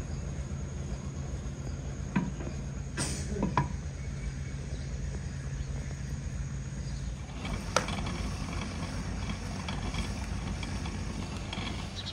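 A steady low mechanical hum, which fades out about seven seconds in, with a few sharp knocks or clicks over it.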